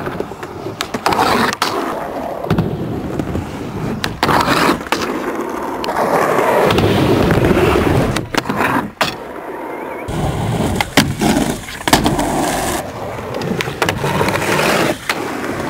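Skateboards on a concrete skatepark: wheels rolling, trucks grinding along ledges, and sharp clacks of boards popping and landing, many times.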